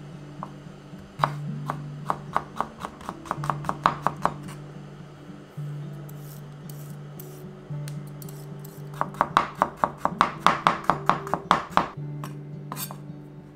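Chef's knife chopping vegetables on a wooden cutting board, in two runs of quick strokes. The first run starts about a second in and is the green beans. The second, faster run starts about nine seconds in and is a burdock root being sliced.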